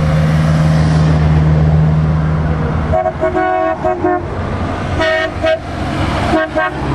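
Passing vehicle engines drone steadily, then from about three seconds in a vehicle horn sounds three bursts of short toots.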